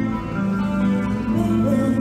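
Live band music from a theater stage show, led by guitar over bass and drums, with held notes.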